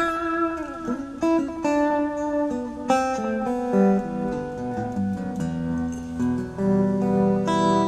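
Telecaster-style electric guitar being played: picked single notes and short runs at first, then settling into longer held, ringing chords over the last few seconds.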